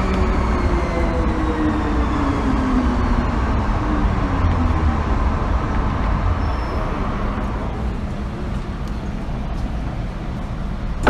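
MTR M-Train traction motors whining as the train brakes, several tones sliding down in pitch over the first five seconds or so, over steady wheel-and-rail rumble heard from inside the car. The whine then fades and the rumble carries on as the train slows.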